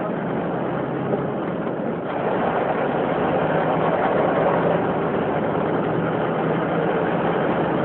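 A steady engine running, with a constant hum and a dense rushing noise over it that grows a little louder about two seconds in.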